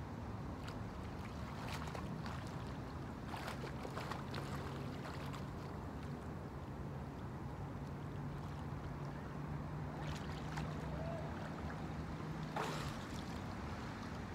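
Lakeside outdoor ambience: a steady hiss of wind and water with small splashes and clicks of water at the shore. A low steady hum comes in about three seconds in and stops shortly before the end.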